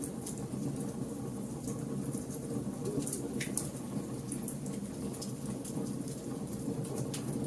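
Wood campfire burning: irregular sharp crackles and pops of the logs over a steady low rumble of the flames.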